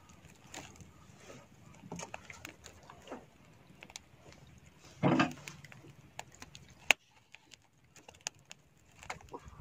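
Scattered faint clicks and taps as small squid are handled and turned over a glowing coconut-shell fire, with one short grunt-like vocal sound about five seconds in and a sharp click a little before seven seconds.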